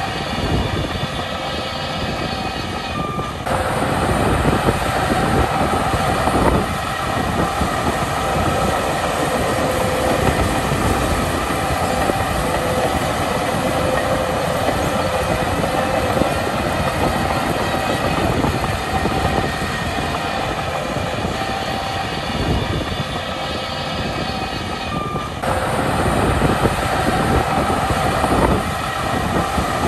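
Shantui crawler bulldozer working under load: its diesel engine running hard while the steel tracks clank and squeal as it pushes dirt. The sound grows louder and harsher about three and a half seconds in and changes again near the end.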